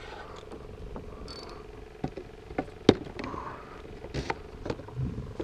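Fishing reel whirring with a fine, steady buzz while an angler fights a large hooked stingray, the line under load. From about two seconds in, a few sharp knocks of gear against the kayak cut in, the loudest about three seconds in.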